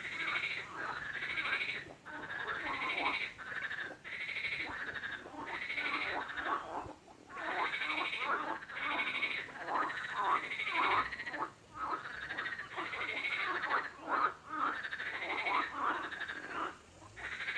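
Frogs calling in a dense chorus: many croaking calls overlap almost continuously, with only brief gaps.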